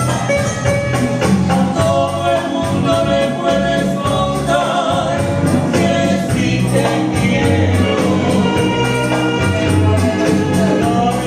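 A man singing a Latin American song in Spanish over musical accompaniment, with a steady shaken-percussion beat of about four strokes a second.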